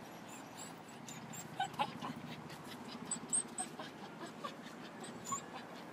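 A dog whining in a series of short, high whimpers, the sharpest ones about a second and a half in and again past the three-second mark.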